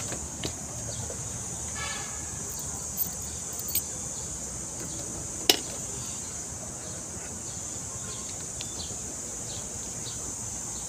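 Steady high-pitched buzzing of insects in the trees over a low background rumble, with one sharp click about halfway through.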